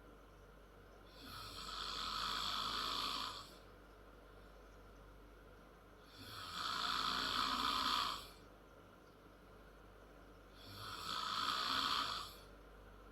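A 10-year-old girl snoring: three long, rasping snores of about two seconds each, coming every four to five seconds, with quiet breathing between them.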